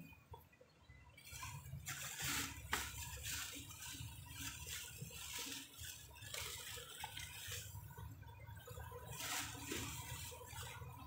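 Road traffic heard from above: a steady low rumble with swishing tyre noise that swells as vehicles pass, loudest about two to three seconds in and again near the end.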